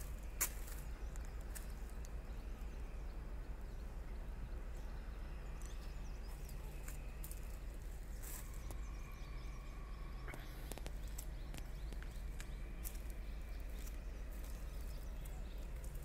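Outdoor ambience: a steady low hum and hiss, with scattered faint clicks, one sharper click just after the start, and a thin held tone about halfway through.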